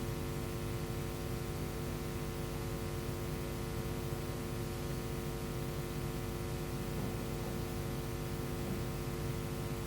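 Steady electrical hum with hiss: several fixed tones over an even noise floor, unchanging throughout.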